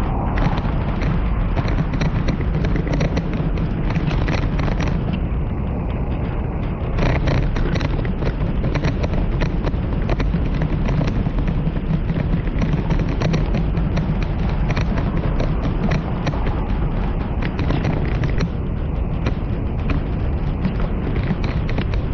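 Stroller with a ride-on kid board rolling over a paved sidewalk: a steady low rumble with rapid clicks and rattles from the wheels and frame.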